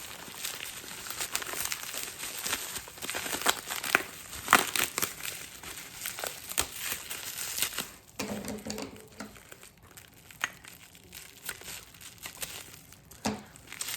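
Packaging being crinkled and pulled apart by hand to unwrap an ornament: busy rustling and crackling for about eight seconds, then only occasional rustles and light taps.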